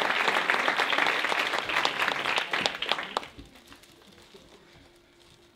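Audience applauding, a dense patter of hand claps that dies away about three seconds in.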